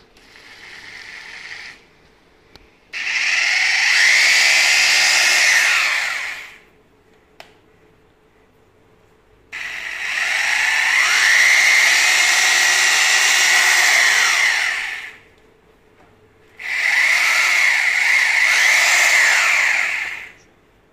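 INGCO rotary hammer drill with a masonry bit, run with no load in the air in separate bursts. There is a short, weaker spin near the start, then three longer, loud runs of a few seconds each. Each run comes up to full speed and winds down when the trigger is released.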